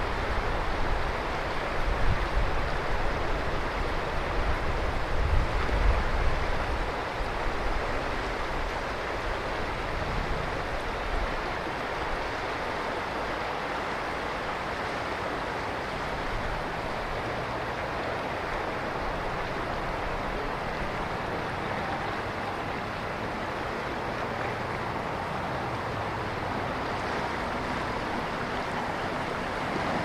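Ishikari River water rushing where a tributary joins the main stream, a steady, even wash of flowing water. Low, gusting rumbles sit under it for about the first seven seconds, then die away.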